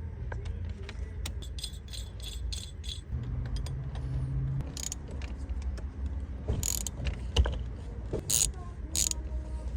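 Keys and small metal lock parts jingling and clicking during a lock cylinder change, with a run of light clicks early on and several sharper clicks later.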